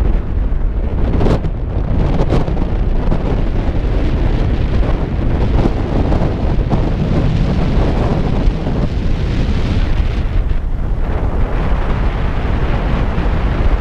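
Strong wind blowing across the camera's microphone: loud, continuous rumbling wind noise that rises and falls slightly.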